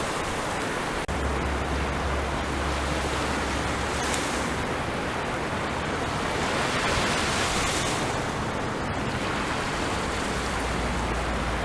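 Ocean surf washing onto a beach: a steady, continuous rush of waves, with a brief dropout about a second in.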